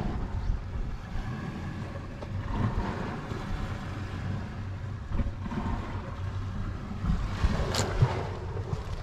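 Wind rumbling on the microphone, low and steady, with a brief sharper sound near the end.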